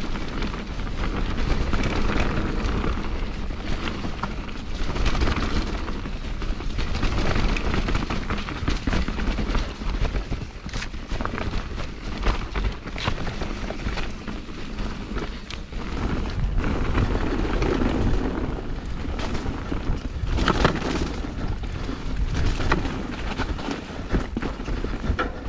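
Mountain bike descending a rough, wet dirt trail, heard from a mounted action camera: a continuous rumble of wind and tyres with frequent rattles and knocks from the bike over bumps and roots.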